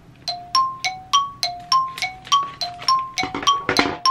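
Background music: a two-note melody of short ringing notes alternating high and low, about three a second, beginning just after the start. A brief rustle of plastic packaging being handled near the end.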